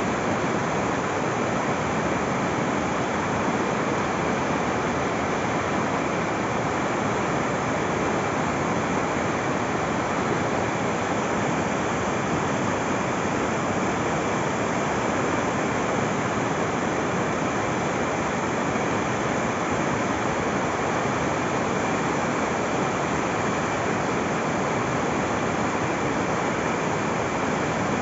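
River in flood, its water rushing with a steady, even noise.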